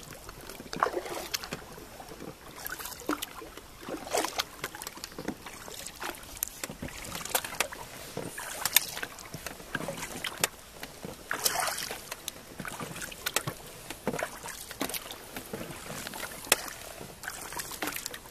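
Water lapping and dripping along the hull of a Pouch RZ 85-3 folding kayak, broken by irregular light knocks and clicks.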